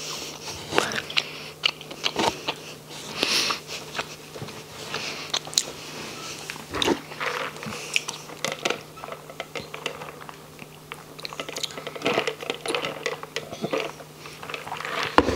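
Close-miked mukbang mouth sounds: chewing with wet smacks and small clicks, then sips drawn through a plastic drinking straw.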